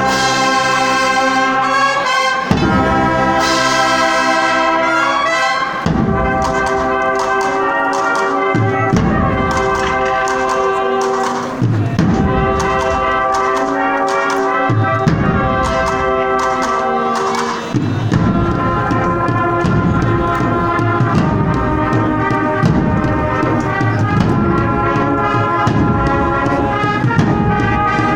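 Spanish Holy Week brass band (agrupación musical) of trumpets, trombones and drums playing a processional march: sustained brass chords over steady drum beats.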